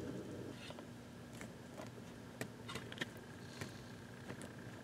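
Faint, scattered small clicks and ticks of fingers handling a plastic ECU wiring connector while a crimped terminal pin on a wire is pushed into its socket.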